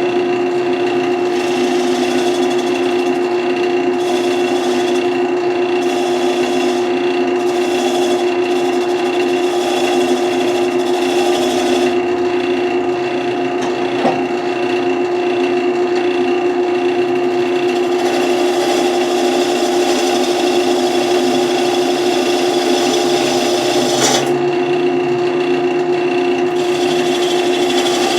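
Wood lathe running with a steady motor hum while a turning tool scrapes the spinning wood, the cutting hiss coming and going as the tool is worked, squaring the end for a tenon. Two short sharp ticks, one about halfway through and one near the end.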